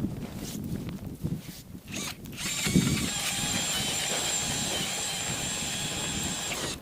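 A cordless drill driving an ice auger, starting about two and a half seconds in after a few knocks and running steadily at even speed as it bores through the ice, then stopping near the end. It is running on a freshly swapped second battery after the first one went flat.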